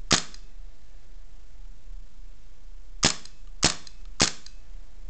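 Airsoft C96 Mauser replica pistol firing four sharp shots. There is one shot at the start, then after about three seconds a quick run of three shots roughly half a second apart.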